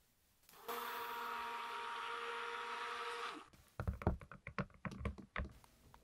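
Small handheld electric mixer whirring in soap batter for about three seconds, then cutting off; a run of clicks and knocks follows as the utensil taps and clinks against the glass cup.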